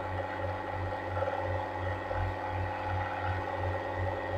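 Steady low electrical hum with a faint hiss, pulsing lightly in level: background noise of the recording between spoken lines.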